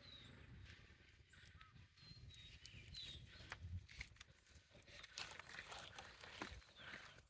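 Faint forest ambience with a few short, high bird chirps and scattered soft footsteps on the forest floor.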